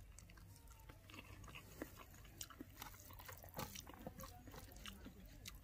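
A person eating rice and curry by hand: faint chewing with scattered small mouth clicks and smacks.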